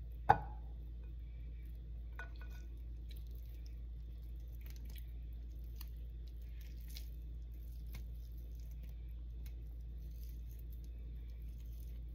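Cooked chicken being pulled apart by hand: faint soft squishes and small clicks over a steady low hum. One sharp, ringing knock on a ceramic bowl comes just after the start.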